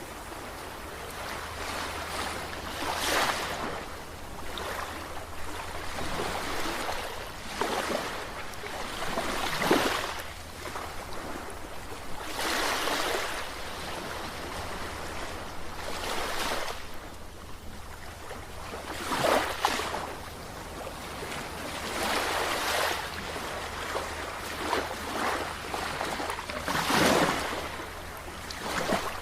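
Sea waves washing in, rising and falling in irregular surges every few seconds.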